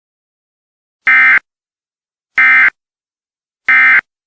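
Emergency Alert System end-of-message tones: three short, identical digital data bursts a little over a second apart, marking the end of the alert.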